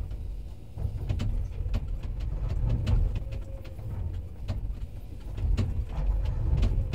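Komatsu PC210 excavator's diesel engine and hydraulics running under load, heard from inside the cab as a steady low rumble. Scattered clicks and knocks sound over it as the bucket scrapes the sides of a hole in frozen ground.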